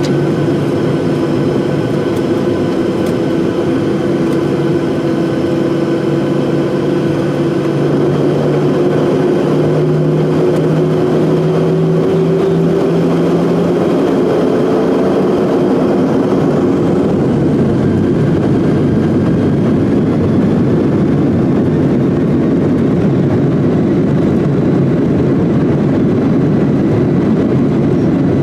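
Airliner jet engines spooling up for takeoff: steady engine tones, one rising in pitch, give way about halfway through to a loud, even rush that builds as the plane accelerates down the runway.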